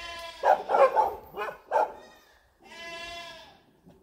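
Tethered dogs barking at a passer-by: about five quick barks in the first two seconds, then one drawn-out bark lasting about a second.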